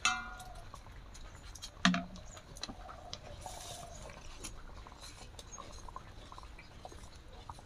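A long metal ladle scraping and clinking against an iron wok while stirring milk, with scattered light scrapes and ticks. There is a loud sharp clank right at the start and another knock about two seconds in.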